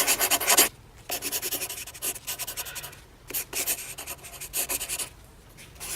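Pencil writing on paper: quick scratchy strokes in a series of bursts, loudest in the first second, then softer bursts with short pauses between them.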